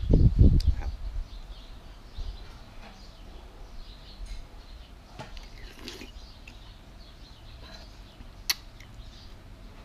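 A person eating from a frying pan with a metal spoon: a few low puffs of breath at the start, then quiet eating with soft spoon clinks, and one sharp clink of the spoon against the pan about eight and a half seconds in.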